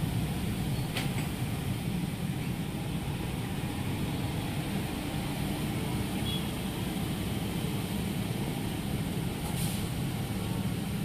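Steady rumble and hiss of street traffic in the rain, with two brief sharp clicks, one about a second in and one near the end.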